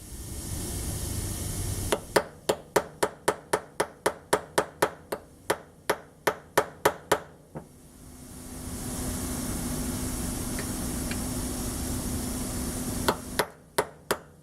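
A small hammer tapping a pin punch to drive a riveted pin into the lifter lever of a shotgun trigger group: a quick run of metallic taps, about three a second for some five seconds, then a steady hiss, and a few more taps near the end.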